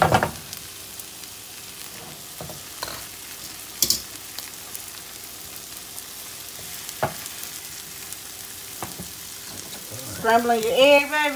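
Beaten egg sizzling as it sets in a hot frying pan beside sautéed vegetables, a steady frying hiss. A few light clicks of a silicone spatula against the pan stand out now and then.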